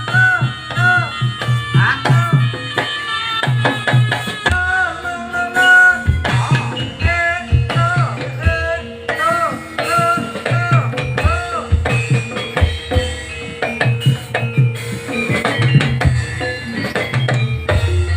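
Javanese jaranan music: drums beating a dense rhythm under a repeating melody whose notes bend up and down in pitch.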